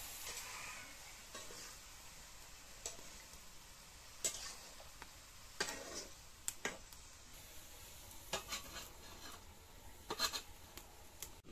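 Metal spatula scraping and knocking against an iron wok as gourd pieces are stirred, over a faint steady hiss. About ten seconds in, the loudest clatter comes as a metal lid is set on the wok.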